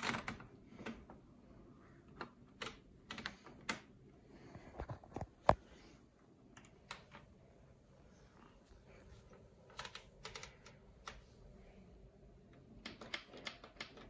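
Beko washing machine control panel being set: sharp plastic clicks from its buttons and programme dial, coming in small clusters, the loudest single click about five and a half seconds in.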